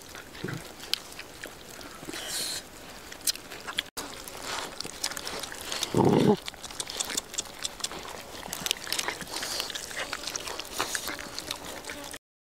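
Several dogs eating grilled fish, chewing and crunching the bones with many small clicks and crackles and a short, louder low noise about halfway through. The sound cuts off abruptly just before the end.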